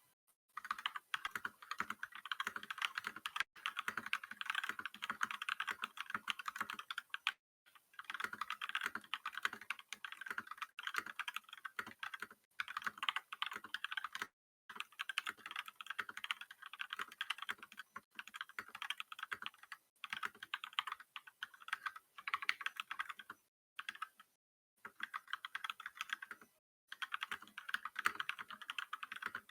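Fast typing on an Akko 3108 V2 Horizon mechanical keyboard with Akko pink switches and double-shot PBT keycaps: dense key clacks in runs of a few seconds, broken by several short pauses.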